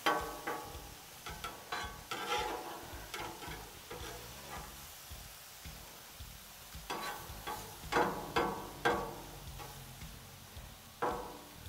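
Metal spatula scraping and knocking against a steel griddle top as shrimp and scallops are turned, over a faint sizzle of food frying. The strokes come in clusters, the loudest between about seven and nine seconds in.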